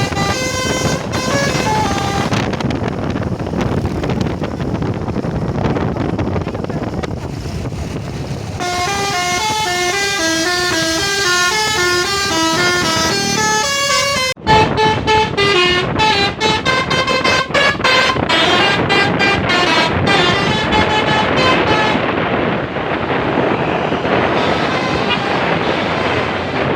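Multi-tone 'telolet' horn on a Mercedes-Benz bus, playing a melody of stepped notes over steady vehicle noise. A slower tune is followed, after a brief cut about halfway through, by a faster, choppier run of notes.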